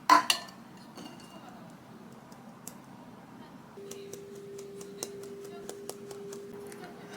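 Kitchen sounds: a sharp clink of dishware at the start, then scattered light clicks, and about four seconds in a steady low hum from a kitchen appliance starts up and keeps running.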